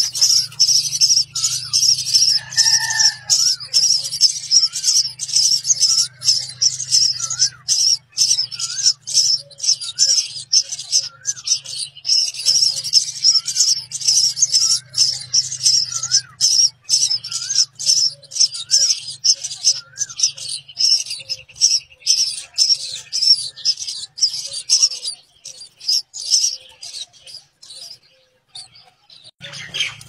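Nestlings begging for food: a rapid, high-pitched chorus of chirps that falls away for a few seconds near the end. Softer wavering notes repeat about once a second, and a faint low hum runs beneath.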